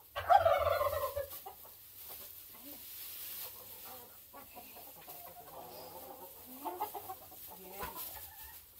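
Chickens clucking, with one loud call lasting about a second near the start and softer clucks after it.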